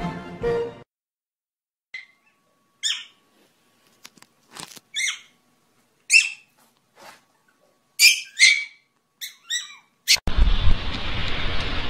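A puppy giving a string of short, high-pitched yips, about a dozen over some eight seconds, some in quick pairs. About ten seconds in they give way to a steady rushing noise.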